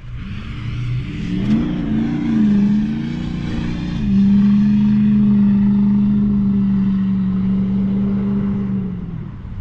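Car engine revving hard: the pitch wavers up and down, then holds steady at high revs for about five seconds before dropping off near the end, in the manner of a car spinning its wheels in a burnout on the icy, snow-covered road.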